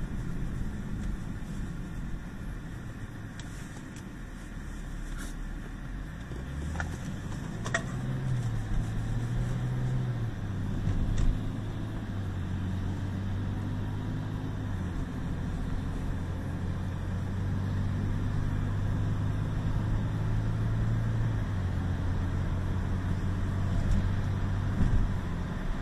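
Car engine and tyre noise heard from inside the cabin while driving. The engine note climbs as the car accelerates about a third of the way in, then steps down in pitch a few times and settles into a steady hum at cruising speed.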